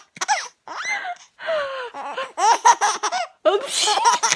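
A five-and-a-half-month-old baby laughing in repeated bursts. A couple of squealing glides, one rising and one falling, come in the first half, then quick rhythmic giggling pulses with breathy intakes follow from about two seconds in.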